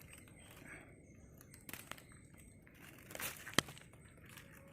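Soft rustling and crinkling of something being handled, with a few sharp clicks; the loudest is a single snap about three and a half seconds in.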